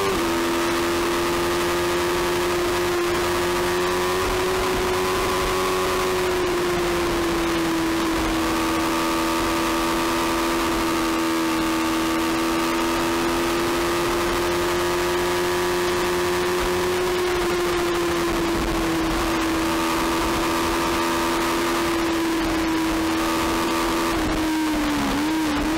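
Small-displacement racing motorcycle engine held at high revs on a fast straight, with wind rushing over the onboard camera. The pitch steps down once right at the start as it shifts up, then falls near the end as the bike brakes and downshifts into a corner.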